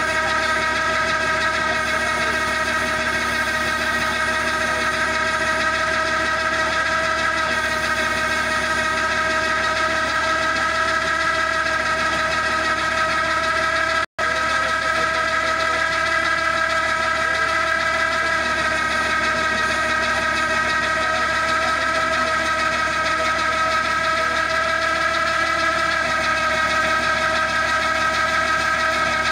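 Tractor-mounted hydraulic auger piling machine, driven by a Massey Ferguson 9500 tractor, running steadily under load as it drills into soil, with a constant high whine over the engine. The sound cuts out for an instant about halfway through.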